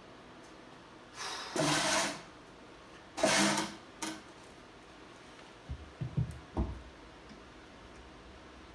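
Engine parts being handled on a workbench: two rattling bursts about a second long, a short click, then a few dull knocks.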